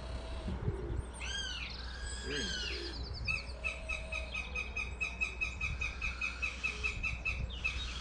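Bird calls: two arched call notes a little over a second in, then a fast run of evenly repeated notes, about four a second, that stops just before the end.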